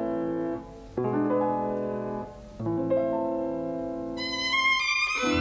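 Slow background music: held chords, two new ones struck about one and three seconds in, then a high violin melody comes in near the end.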